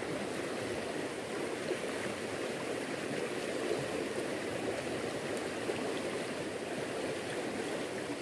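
Swift river current rushing steadily.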